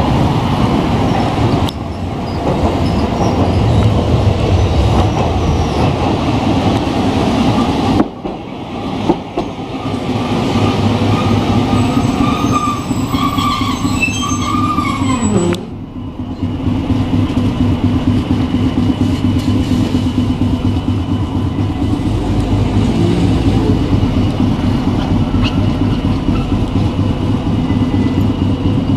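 Hankai Tramway street tram running past on its track: a steady rumble of motor and wheels on rail. About halfway through, a whine falls steeply in pitch.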